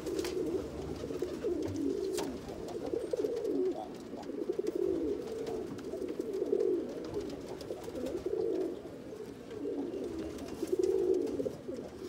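Several tippler pigeons cooing, their low coos overlapping one another without a break.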